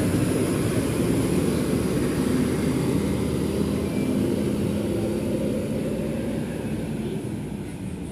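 Large bus diesel engine running with a steady low rumble as the coach pulls out, growing fainter over the last two seconds.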